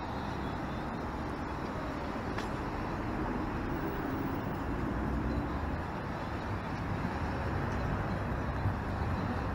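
Steady city street traffic noise, cars driving past on a busy downtown road, picked up by an action camera's built-in microphone.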